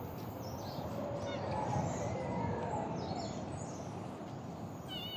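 Outdoor forest ambience: a steady background hiss with scattered faint bird chirps and, in the first few seconds, a faint distant low call that rises and falls.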